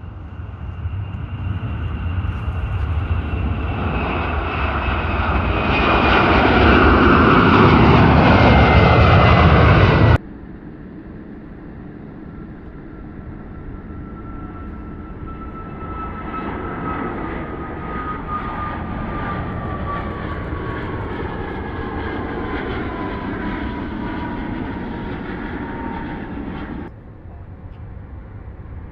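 Airliner engines passing close by, growing loud with a slowly falling whine before cutting off abruptly; then a second airliner passes with another falling whine, also cut off abruptly.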